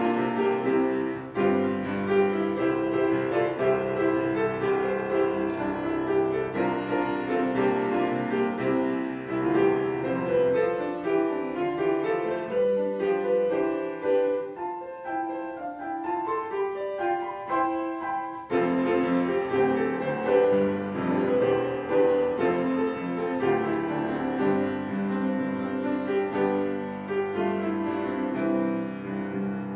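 Grand piano played solo, a flowing piece of chords under a melody. The low notes drop away for several seconds in the middle and come back with a fuller chord about two-thirds of the way through.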